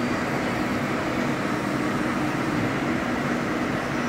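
Hydraulic CNC press brake standing powered up with its hydraulic pump running: a steady mechanical hum holding a few low tones, with no pressing stroke.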